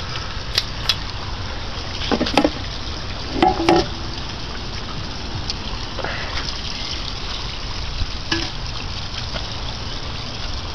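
1959 Kiekhaefer Mercury Mark 6A two-cylinder outboard running steadily in a test barrel, churning the water. A few sharp clicks and clatters in the first four seconds come from the engine cover being unlatched and lifted off.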